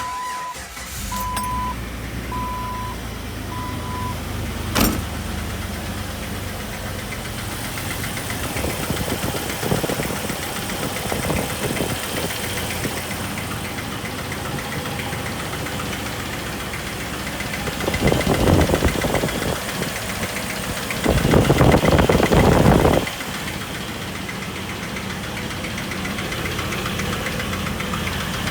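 2000 Jeep Wrangler TJ's 4.0 L inline-six starting and then idling with a steady clicking/knocking tick, revved up twice in the second half. The knock appeared after the engine overheated and lost all its coolant, and the owner hears the tick loudest at the water pump. A dashboard warning chime beeps a few times at the start.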